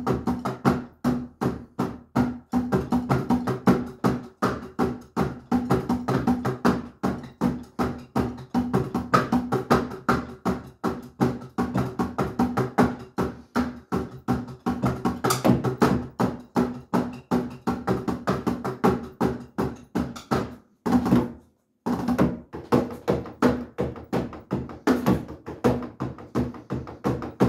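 Drumsticks striking the pads and rubber cymbal pads of an electronic drum kit in a fast, continuous groove. It breaks off for about half a second a little past two-thirds of the way through, then carries on.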